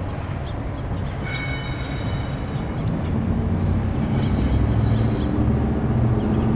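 Diesel locomotives of an approaching CSX freight train, a low engine rumble and drone that grows louder from about three seconds in. A brief high-pitched tone sounds about a second in.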